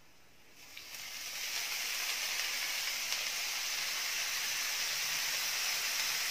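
Water sprinkled by hand onto a hot pan of stir-fried long bean leaves, sizzling into steam: a hiss that starts about a second in, builds and then holds steady.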